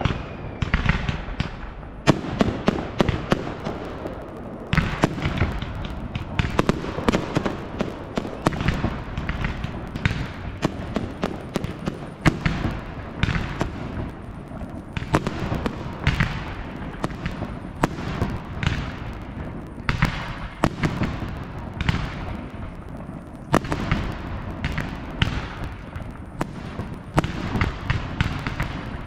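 Fireworks display: a dense, unbroken run of bangs and crackles, several per second, with deeper booms among them.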